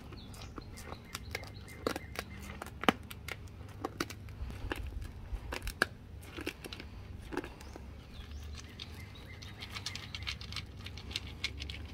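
A deer licking and mouthing at a metal can: irregular sharp clicks of its tongue and mouth against the can, over low steady background noise.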